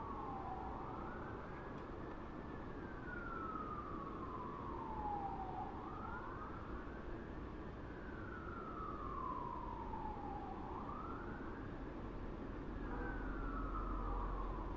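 Distant American fire truck siren wailing: a slow rise and fall in pitch, about one cycle every five seconds, over a low background rumble.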